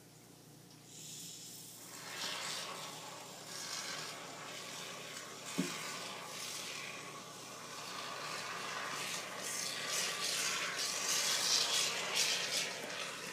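Great Stuff Gaps and Cracks expanding foam hissing from its aerosol can as it is dispensed, in uneven spurts that get stronger near the end. One short click about halfway through.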